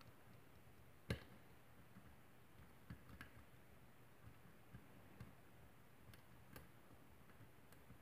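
Faint, irregular clicks of a hook pick and tension wrench working the pins of a West Coast Picks Spools Errand challenge lock cylinder, with one sharper click about a second in.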